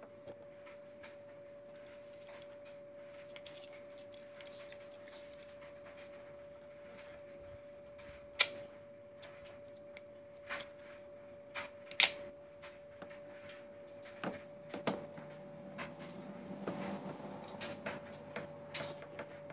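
Porsche 997 plastic side marker and its clip being worked out of and back into the bumper: scattered sharp clicks and taps, the loudest about eight and twelve seconds in, over a faint steady hum.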